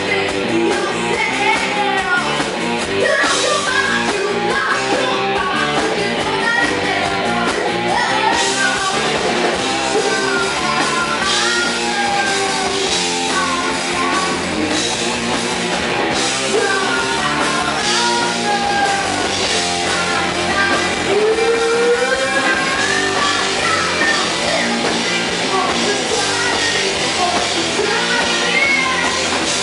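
Live rock band: a woman singing lead over electric bass, guitar and drum kit, loud and without a break.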